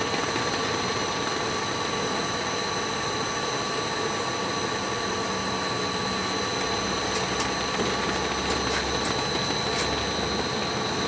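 Compound bubble-film (air bubble wrap) production machine running, a steady mechanical hum and hiss with a constant high whine.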